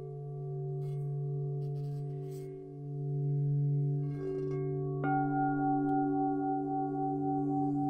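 Several singing bowls ringing together in long overlapping tones, the lowest one swelling and fading in slow pulses. About five seconds in another bowl is struck, adding new higher tones to the ring.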